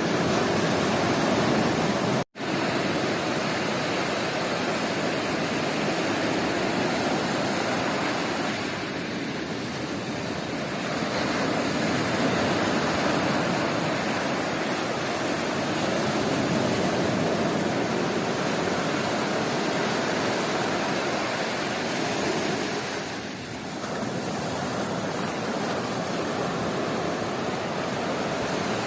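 Surf on a sea beach: a continuous wash of breaking waves that eases a little twice, about nine seconds in and again near twenty-three seconds, with a split-second dropout of the sound about two seconds in.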